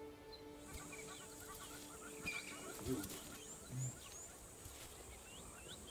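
Bush ambience: birds chirping over a steady high-pitched buzz, while soft music fades out over the first two seconds. Two short low grunts come about three and four seconds in.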